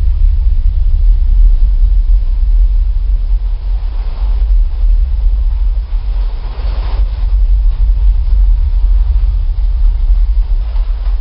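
Big Thunder Mountain Railroad's mine-train roller coaster running on its track, heard from onboard as a loud, steady low rumble, with brief brighter surges about four and seven seconds in.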